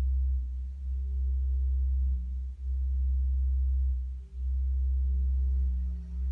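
A steady low hum with fainter, higher tones above it, dipping briefly a few times.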